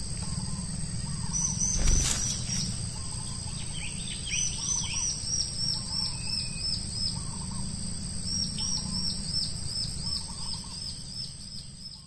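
A small songbird repeating a short, high hooked note about three or four times a second, in runs lasting a few seconds, over a steady high-pitched insect drone. A single sharp knock about two seconds in is the loudest moment.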